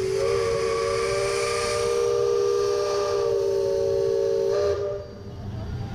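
Steam whistle sounding one long, steady blast, a chord of several tones over a hiss. It cuts off abruptly just before five seconds in.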